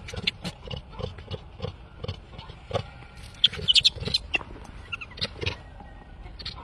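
Infant macaque giving short, high squealing cries, loudest a little past the middle, among a run of quick clicks and rustles.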